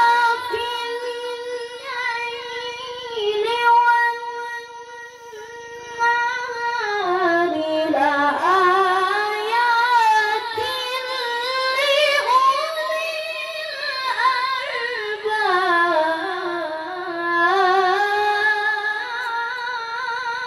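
A child reciting the Quran in a high-pitched voice: one long, ornamented melodic phrase of tilawah with trills. It is held high for several seconds, slides down, and climbs back up.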